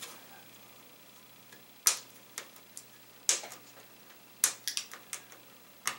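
Scattered sharp clicks and ticks of a small wire plug being worked loose from an LED backlight strip's connector against the metal backlight panel, with a quick run of clicks near the end.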